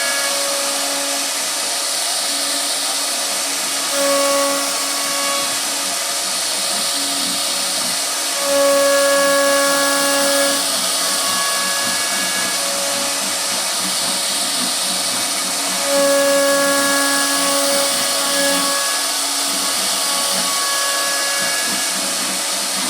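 CNC router spindle routing a wooden door panel: a steady high hiss of the cutting, with a pitched whine that swells and fades several times as the bit moves through the wood.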